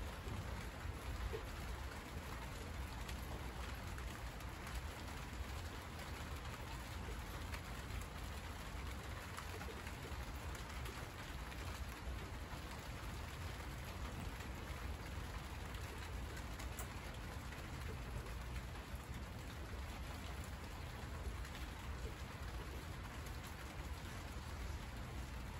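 Summer rain falling steadily on the broad leaves of monstera plants, an even hiss of drops with no let-up.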